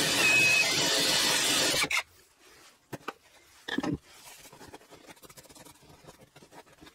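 Cordless drill driving a hole saw through a caravan's wood wall panel, a dense grinding whir that stops suddenly about two seconds in. Then a few knocks, the loudest near the four-second mark, and light scrapes as the drill and the cut-out wooden disc are handled and set down on the bench.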